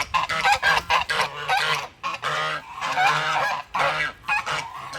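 A flock of domestic geese honking, many calls repeating and overlapping.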